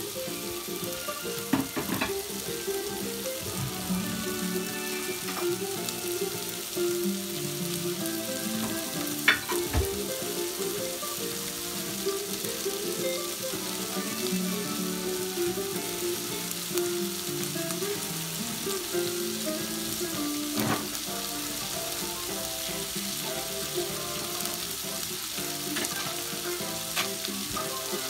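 Onion and parsnip pieces sizzling steadily in butter in a stainless steel pot as they sweat, with a few sharp clicks, the sharpest about nine seconds in.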